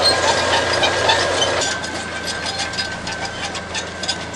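Crawler bulldozer's diesel engine running steadily. About a second and a half in the sound drops suddenly and grows quieter, with light clicking after it.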